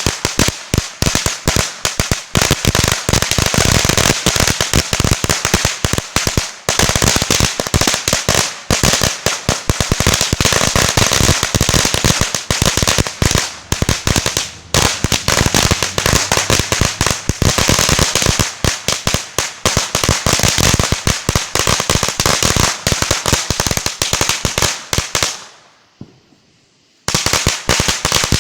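A batch of 2,000 firecrackers going off in a rapid, continuous chain of sharp bangs. Near the end the bangs stop for about a second and a half, then start again.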